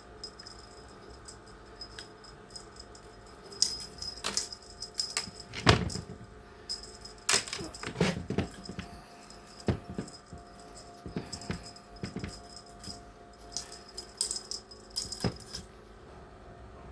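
Irregular jingling and rattling, with many sharp clicks and a few louder knocks, strongest in the middle stretch.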